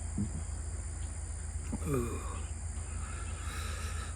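Crickets chirping steadily over a low hum, with a man's short falling "ooh" about two seconds in.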